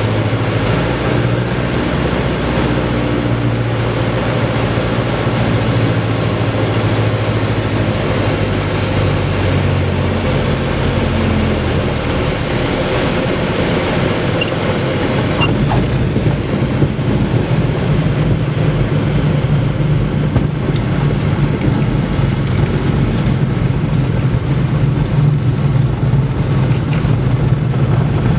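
Single-engine piston light aircraft (Robin DR460) heard from inside the cockpit, engine running on final approach, then throttled back with its note dropping about ten seconds in. A brief knock a few seconds later, then the engine idling over rumbling wheel and wind noise as the aircraft rolls out on the runway after touchdown.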